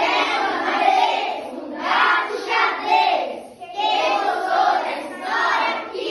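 A group of children singing together in chorus, in short phrases with brief pauses between them.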